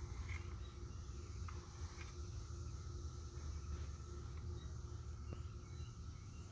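Insects chirring steadily outdoors, over a low rumble.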